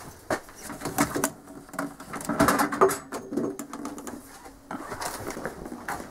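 Clatter of objects being handled: a string of sharp clicks and knocks, with a short rattling scrape in the middle.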